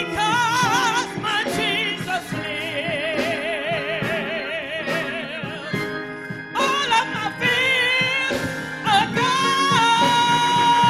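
Gospel singing: a solo voice with wide vibrato over instrumental accompaniment, settling into a long held high note near the end.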